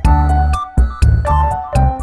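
Background music: a bright, bouncy tune with a regular beat, bass and chiming notes.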